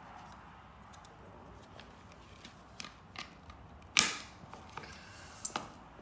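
Handling of a Shark vacuum cleaner's plastic-framed foam filter: a few light plastic clicks and one sharp knock about four seconds in, as it is set down on a tile floor.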